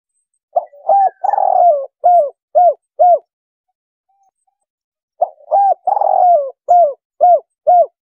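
Spotted dove cooing, the 'kuk 3' call type. There are two phrases a couple of seconds apart, each made of two short coos, one long falling coo and then three short 'kuk' notes. Bird trappers use this call as a lure.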